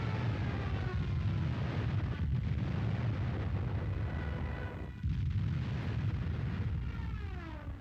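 Battle sound track: a heavy, continuous low rumble of artillery fire and explosions, with an aircraft engine drone over it whose pitch slides slowly down, then falls steeply near the end as the plane passes. The track jumps abruptly about five seconds in.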